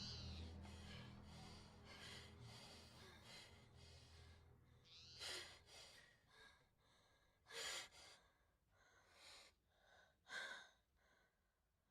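Shaky gasps and heavy breaths, a second or two apart, from people recovering after a fright. Under them a low rumble fades out over the first few seconds.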